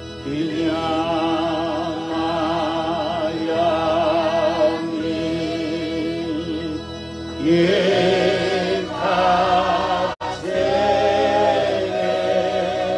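A man singing a slow Zulu hymn, holding long notes with vibrato. A louder, higher phrase begins about halfway through, and the sound cuts out for an instant near the end.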